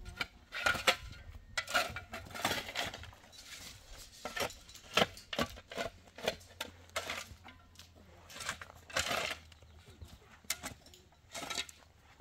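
Irregular knocks and clinks of hard objects being handled, some with a short ring.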